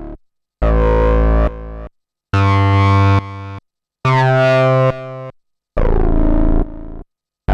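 Modor NF-1 digital virtual analog synthesizer playing a preset: four evenly spaced notes about every 1.7 seconds, with a fifth starting at the very end. Each note is bright and buzzy with a sweeping formant-filter tone, holds loud for about a second, drops to a quieter tail and cuts off sharply.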